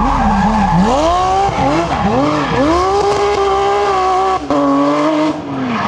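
Porsche 911 rally car's flat-six engine revving hard under acceleration, its note climbing and dropping again with each gear change. A little past the middle the note jumps abruptly to a high steady pitch, then falls near the end.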